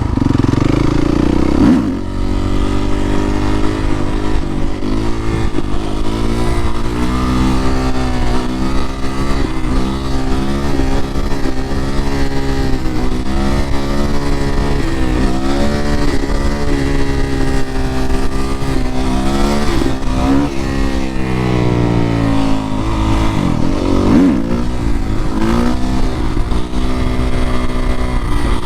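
Single-cylinder four-stroke engine of a 2019 Suzuki RM-Z450 supermoto being ridden hard, its pitch climbing and dropping over and over as it is revved up and shifted through the gears, over a low rumble of wind.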